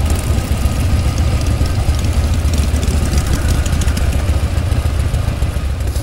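Vintage Harley-Davidson V-twin motorcycle engines running at low speed, with a steady, low-pitched pulsing exhaust beat.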